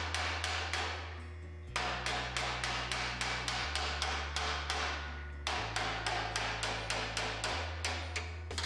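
Hand hammer tapping the relief-cut tabs of a sheet-steel mower deck nose, bending them in to form its curve: a steady run of quick, sharp metallic taps, about four or five a second.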